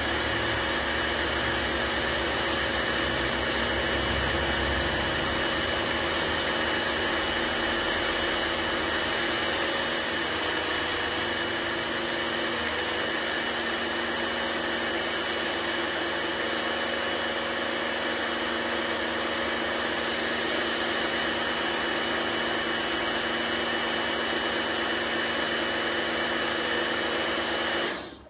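Electric pressure washer running steadily, its motor and pump humming under the hiss of shampoo snow foam being sprayed from a foam lance onto a car. It stops abruptly near the end.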